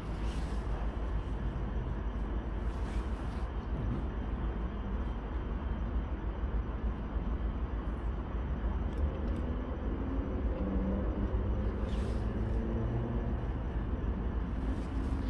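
Outdoor ambience with a steady low rumble, joined from about nine seconds in by a faint engine hum, with a few soft knocks.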